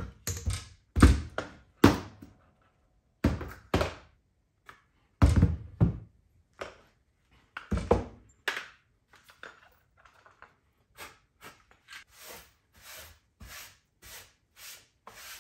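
Wooden boards and a pocket-hole jig being handled and set down on a workbench: a string of separate knocks and thunks, heaviest about a second in, around five to six seconds in and near eight seconds. In the second half, softer, evenly spaced short strokes follow, about two a second.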